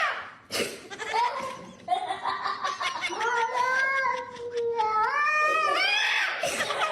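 A cat yowling in long, drawn-out calls that waver and bend in pitch, with one long call through the middle and a rising call near the end.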